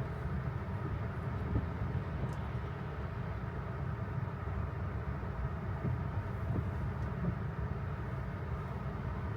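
Steady low road and tyre rumble inside a moving Tesla's cabin, with no engine note from the electric drive.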